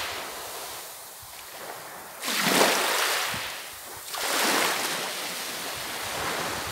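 Small sea waves washing onto a beach in slow surges, each swell rising and falling away; the loudest comes about two seconds in, another a second and a half later.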